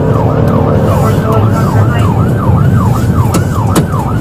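Police car siren in yelp mode: a fast, repeating wail sweeping up and down about three times a second, over the steady low rumble of the patrol car driving at speed.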